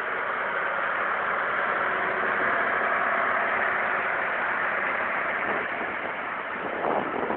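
John Deere 3040 tractor's diesel engine running steadily as it drives past, pulling a Claas mower cutting grass. Loudest as it passes about two to three seconds in, then easing off as it moves away.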